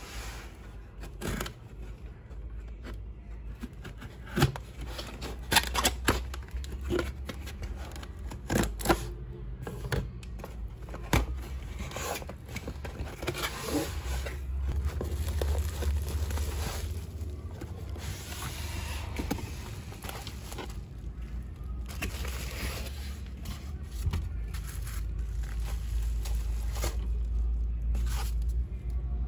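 Cardboard box being opened and handled by hand: scraping and tearing of the tape and flaps, with a series of sharp knocks and taps in the first half. Then a longer stretch of steady rustling and scraping as the contents are pulled out.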